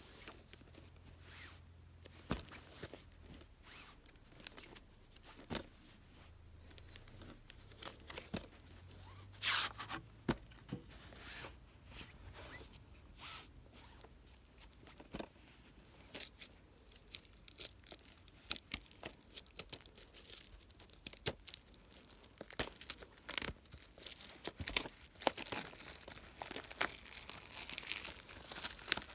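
Plastic shrink-wrap on a DVD case being picked at, torn and peeled off by hand: scattered clicks and crinkles that grow denser and louder near the end.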